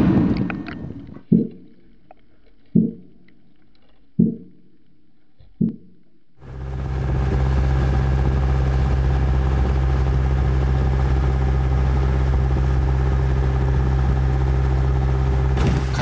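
Pile-driving blows on offshore wind turbine foundations heard underwater: four heavy strikes about a second and a half apart, each ringing briefly. About six seconds in, a boat's engine takes over with a steady low hum.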